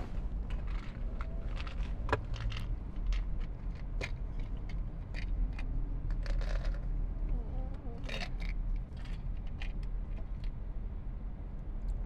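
Inside a moving car: steady low rumble of road and engine noise, with scattered light clicks and rattles.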